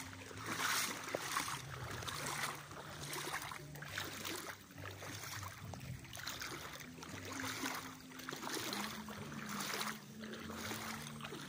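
Shallow river water swishing and splashing around legs wading through it, about one step a second, over the steady flow of the river.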